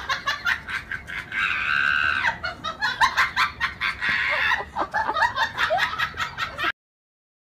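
A husky-type dog's rapid high cries and yelps, with one longer high cry about a second and a half in. The sound cuts off abruptly near the end.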